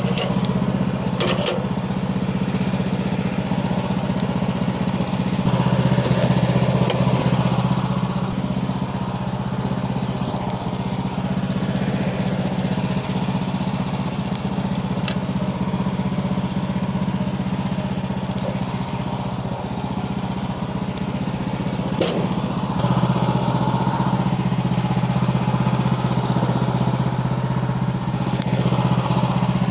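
An engine runs steadily throughout, swelling a little twice, with a few brief sharp knocks.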